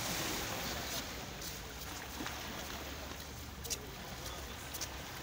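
Steady rumbling rush of a small boat under way, with water and wind noise and a few faint knocks.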